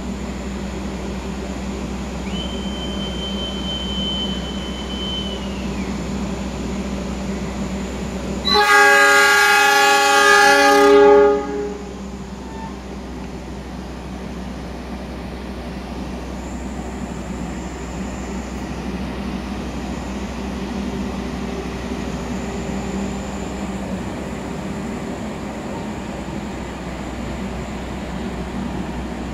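Diesel locomotive horn sounding one blast of about three seconds, the loudest sound, over the steady hum of the idling train. A few seconds earlier a shrill whistle tone is held for about three seconds.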